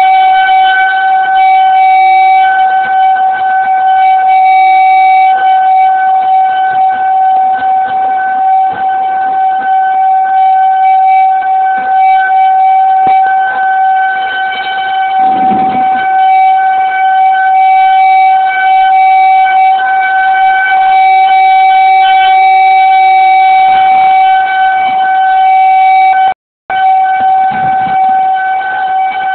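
Outdoor tornado warning siren sounding a loud, steady tone, its upper tones swelling and fading every few seconds. The sound cuts out for a moment near the end.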